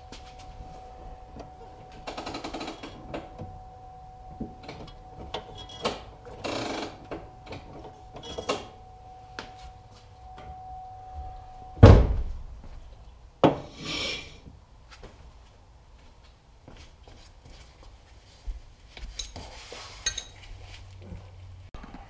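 Metal clicks, light clunks and short scrapes of a parking brake cable and its bracket hardware being handled and fitted under a car, with a loud knock about twelve seconds in and another a moment later.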